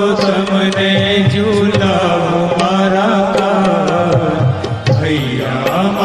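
Instrumental break in a Gujarati devotional cradle song for Krishna: a steady drone with a melody over it and light hand-drum ticks, briefly dipping about five seconds in.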